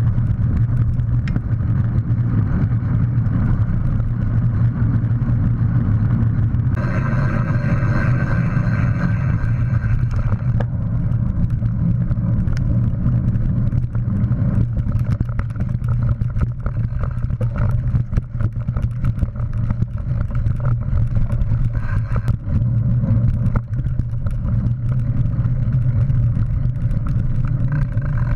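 Mountain bike riding over gravel paths and dirt trails: a steady low rumble of wind and tyres, with constant small rattles and clicks from the bike. About seven seconds in, a higher buzzing tone with several pitches joins for about four seconds.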